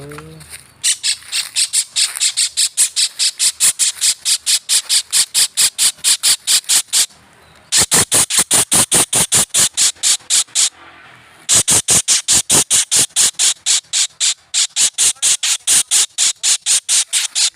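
Kingfisher giving a fast run of harsh, rasping calls, about four or five a second, in three long bouts with two short breaks: the distress calls of a bird caught in a net.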